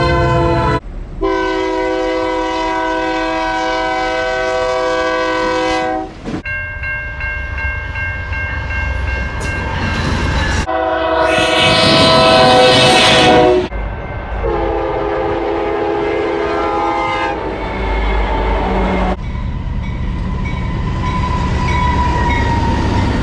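Locomotive horns sounding in a series of long blasts, one train after another with abrupt cuts between them, over the low rumble of the trains.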